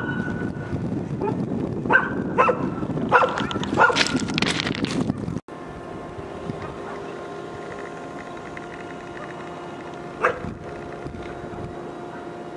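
Dogs barking repeatedly for about five seconds. Then the sound cuts off abruptly to a steady hum with several held tones from a train on the railway line, with one short knock about ten seconds in.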